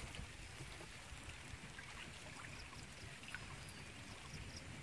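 Quiet outdoor sound: a steady low rumble of wind on the microphone, with faint rustling and small water sounds as hands work through wet grass and water beside a wooden boat.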